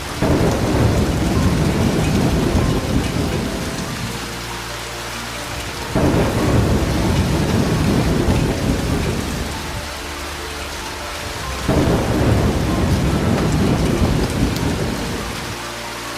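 Thunderstorm: steady heavy rain with three rolls of thunder, each breaking suddenly and rumbling away over several seconds, about six seconds apart.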